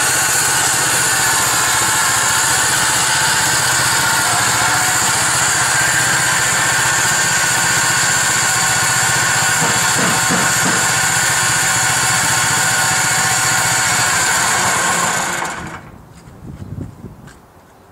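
Portable bandsaw mill running steadily, its gas engine driving a 1½-inch Wood-Mizer Double Hard band blade through a hemlock log. The sound stops abruptly about fifteen seconds in, leaving a few faint knocks.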